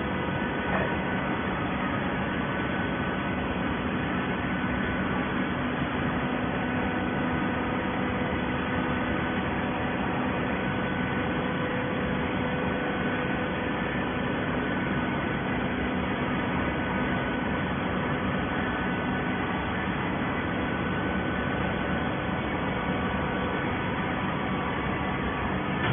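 Hydraulic waste paper baler running: a steady machine noise with a constant hum.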